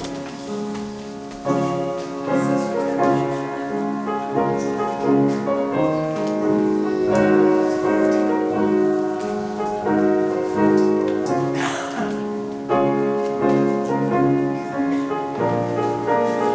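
Instrumental piano music, with sustained chords changing about once a second.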